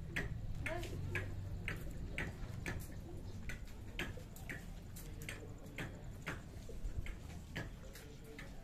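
Goats chewing fodder: rhythmic crunching clicks, about two a second.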